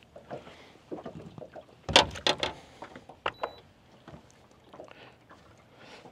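Sharp knocks and thumps on a fishing boat's deck as a just-caught bass is swung aboard and handled: a cluster of loud knocks about two seconds in, then one more about a second later, with lighter taps around them.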